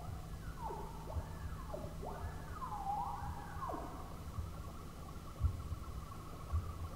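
Electronic music: a synthesizer tone swoops up and down in pitch several times, then settles about halfway in into a steady, wavering high tone over a low rumble with soft thumps.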